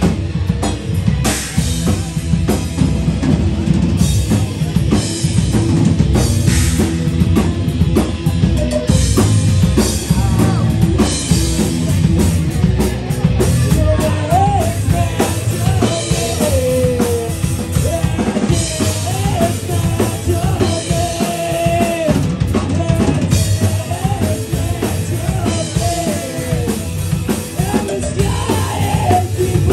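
Live rock band playing a song, the drum kit loud and busy under the rest of the band. About halfway through, a wavering lead melody comes in above it.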